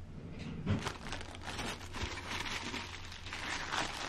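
Clear plastic bags and foam packing sheet crinkling and rustling in irregular bursts as bagged case panels are handled.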